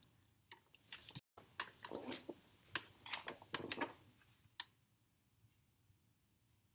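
Faint handling noise: a run of light clicks and short rustles for about four seconds, ending in one sharper click, then near silence.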